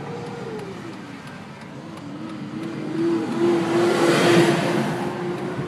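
Car road noise heard from inside the cabin, with a steady engine hum. A box truck passes close alongside, bringing a swell of rushing noise that peaks about four seconds in and then fades.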